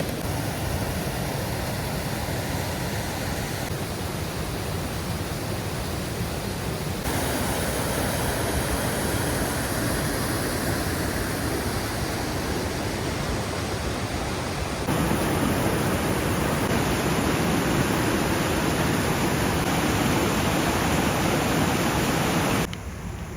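Waterfall: a steady rush of falling water. It changes abruptly in level and tone several times.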